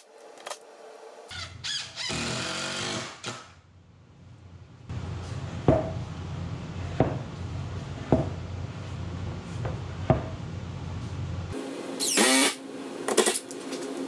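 Cordless drill-driver driving screws to mount metal connector plates onto a wooden table leg, the motor whirring in short runs that rise and fall in pitch. Through the middle a steady hum with a few sharp clicks about once a second.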